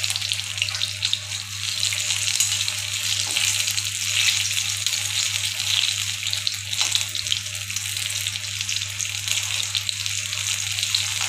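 Paneer pakoras deep-frying in hot oil in a kadhai: a steady, crackling sizzle with a few sharper pops.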